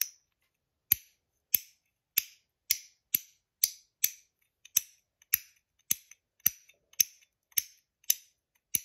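AntDesign Comma 2.0 metal fidget clicked over and over in its clicker mode: about fifteen crisp clicks, a little under two a second.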